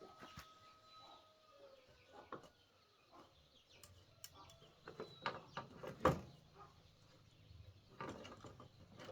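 Faint scattered clicks and knocks, the loudest a sharp knock about six seconds in, with faint animal calls in the background.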